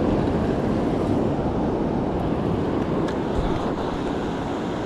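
Steady rush of ocean surf with wind buffeting the GoPro's microphone.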